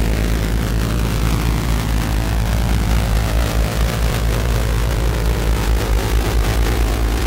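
A loud, steady low rumbling drone, with a tone that slides down in pitch over the first three seconds.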